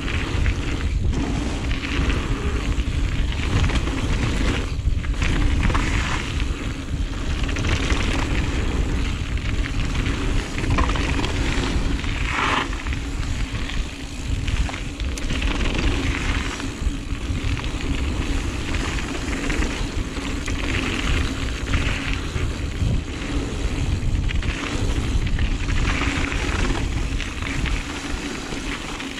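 Wind rumbling on the action camera's microphone as a Giant Reign mountain bike rides downhill, with the tyres rolling over a dirt trail and occasional knocks from bumps. The noise is loud and continuous throughout.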